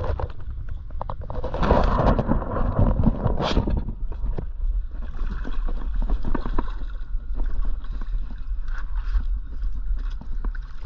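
Water splashing and sloshing as a diver in fins wades and kicks out through shallow water, loudest about two to three and a half seconds in, over a steady low rumble.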